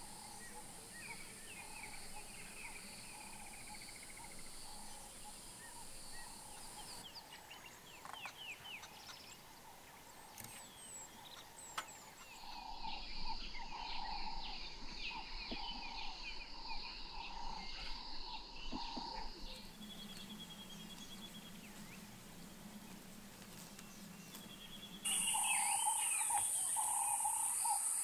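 African bush ambience: assorted birds chirping and calling over a steady high insect buzz. The mix changes abruptly several times, and it is loudest in the last few seconds.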